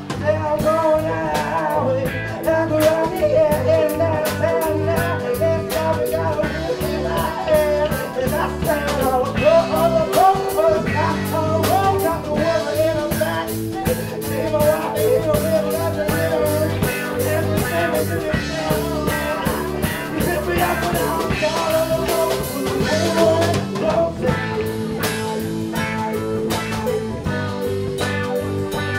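A live band playing a blues-rock cover: electric bass, drum kit and saxophone, with a wavering melodic lead over a steady beat.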